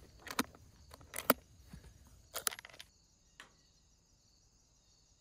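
Latches of a hard-shell saxophone case snapping shut: a run of sharp metal clicks in small clusters over the first three seconds, with a last click a little later. A faint, steady high insect chirring runs underneath, and after the clicks only that remains.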